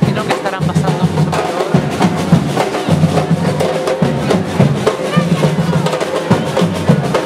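Batucada drum group playing: rapid snare drum strokes over recurring bass drum beats.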